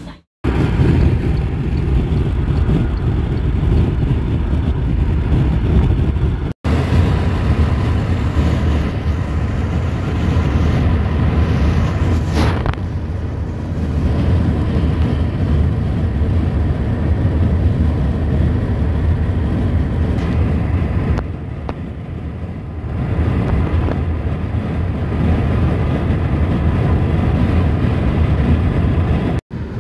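Steady low road and tyre rumble inside the cabin of a moving electric car, with a brief rising whoosh about twelve seconds in.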